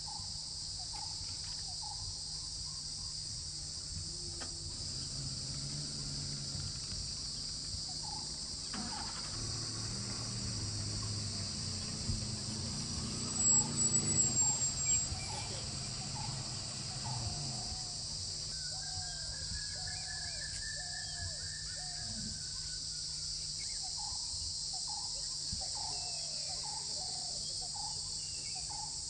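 Steady high-pitched drone of insects, with a green barbet giving a repeated short low note about every two-thirds of a second through the second half. A brief louder high-pitched call stands out about halfway through.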